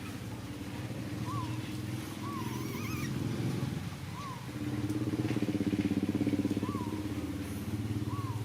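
A motor engine running steadily, growing louder for a couple of seconds past the middle, with short high chirps recurring every second or so over it.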